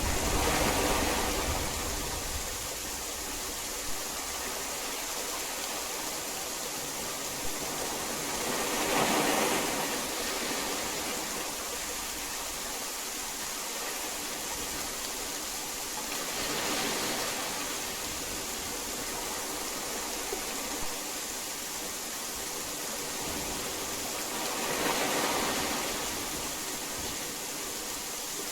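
Heavy rain falling in a steady hiss, swelling and easing about every eight seconds. A low rumble fades away in the first second.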